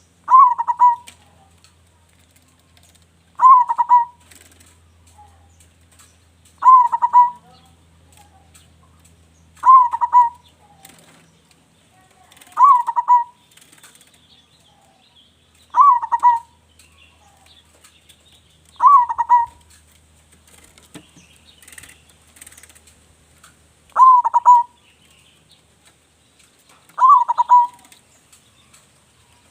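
Zebra dove (perkutut) singing its cooing song phrase over and over: nine short, loud phrases about three seconds apart, with a longer pause about two-thirds of the way through. A local bird singing actively in a big voice.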